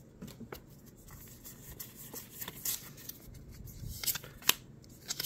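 A Pokémon card booster pack and its cards being handled: soft crinkling of the foil wrapper and crisp clicks of cards slid and flicked, with a few sharper clicks in the second half.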